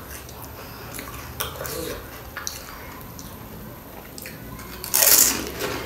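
Panipuri being handled and eaten: soft clicks and taps of crisp puris and utensils against a steel bowl, then one loud, brief crunching burst about five seconds in as a filled puri is eaten.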